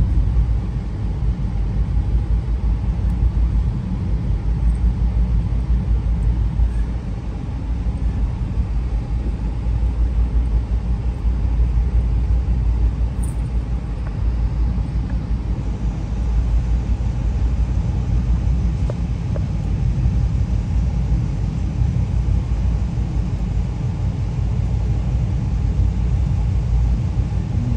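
Steady low rumble of the VIA Rail Canadian running at speed, heard from inside a Skyline dome car: wheels on the rails and the car body carrying the running noise.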